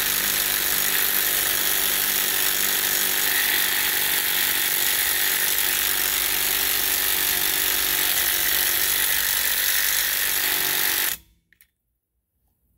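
Ryobi P235 brushed impact driver hammering continuously on a seized lug nut for about eleven seconds, then stopping abruptly; the nut does not break loose.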